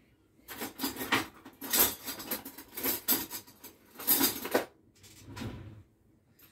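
Irregular bursts of clattering and rubbing from kitchen dishes and utensils being handled. The bursts stop near the end.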